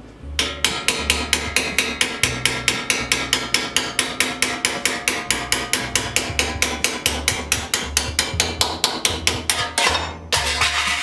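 Rapid, steady hammer blows on a cold chisel, about five a second, shearing thin 22-gauge sheet steel along the top of a bench vise jaw. The blows stop about a second before the end.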